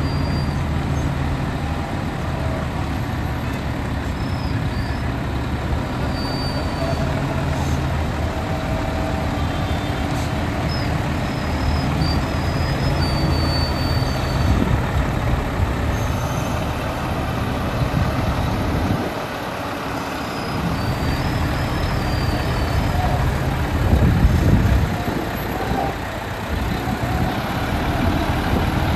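Diesel engine of a Volvo FH heavy-haul tractor unit running steadily at crawling speed as it pulls a very heavy load past, with low rumble from the engine and tyres that swells louder about three-quarters of the way through.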